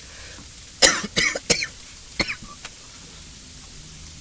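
A person coughs several times in quick succession, starting about a second in, over the steady hiss of sleet and ice pellets falling.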